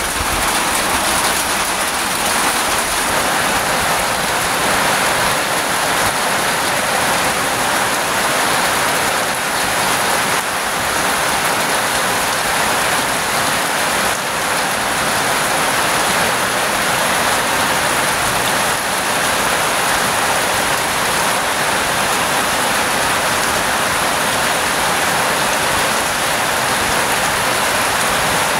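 Heavy rain falling steadily, a dense even hiss of drops on puddles and wet ground.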